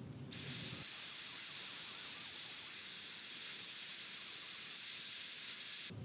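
Handheld steam cleaner jetting steam: a steady hiss with a thin high whistle that rises briefly as it starts, cutting off suddenly near the end.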